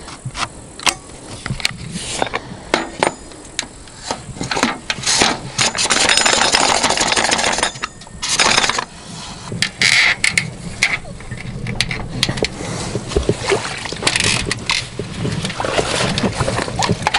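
Fishing gear being handled by hand: an oar and a perforated metal fishing platform knocked and moved about, giving irregular knocks and clatters. Several longer stretches of rushing, scraping noise come between about five and nine seconds in.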